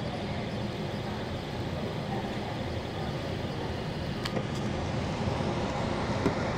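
Skid-steer loader's engine running steadily as it works a demolition debris pile, with a couple of faint clicks near the end.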